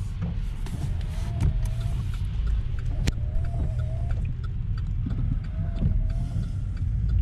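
Car cabin noise while driving on a wet road: a steady low rumble of engine and tyres. A faint short squeak repeats about every two seconds.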